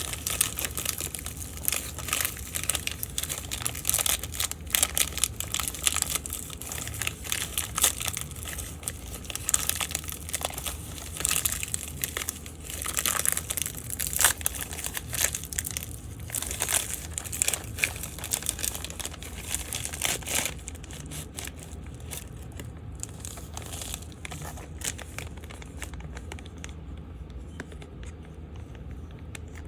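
Plastic packaging crinkling and rustling as it is handled, dense irregular crackles for about twenty seconds, then thinning to occasional light clicks and rustles.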